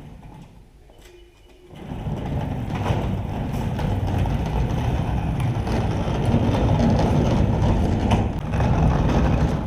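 Diesel engine of a working machine running, swelling about two seconds in and staying loud.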